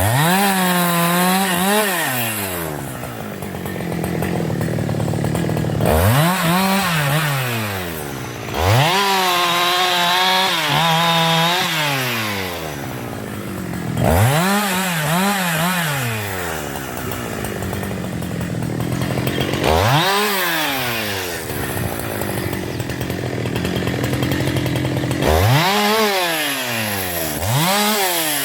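Husqvarna 372 XP two-stroke chainsaw engine, revved up to high speed and let back down about six times, one of them held for a few seconds, running lower between.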